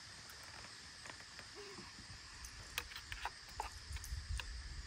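Quiet outdoor background: a steady high drone with scattered sharp clicks and soft knocks, which come more often in the second half.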